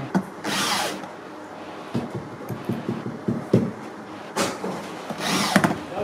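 Red cordless drill driving a screw into the plastic body of a twin-tub washing machine, running in short bursts about a second in and again near the end, with clicks and knocks of handling in between.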